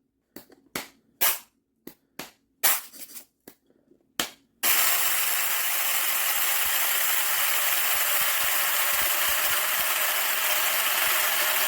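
A series of sharp clicks and knocks, then, about four and a half seconds in, an IHOM cordless blade coffee grinder starts and runs steadily, its stainless steel blade grinding whole peppercorns into a fine powder.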